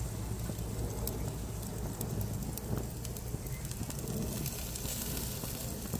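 Wild boar chops sizzling on a hot char grill: a steady hiss with scattered pops and crackles, over a low rumble.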